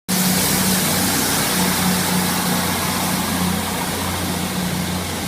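A train idling at a station platform: a steady low engine hum over a constant hiss.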